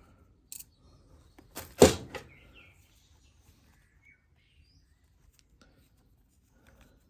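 Hand-tool and handling noise while trimming a replacement starter pull cord: a few light clicks, then a sharp clack about two seconds in, followed by faint rustling.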